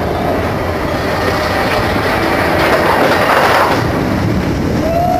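Roller coaster train rattling and rumbling along its steel track as it rides, swelling louder for a moment about three seconds in.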